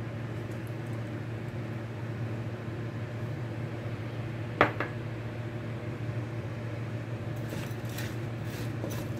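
Steady low hum with a single sharp clink about halfway through, then light clicks of a metal spoon stirring cut potatoes and carrots in a nonstick pan near the end.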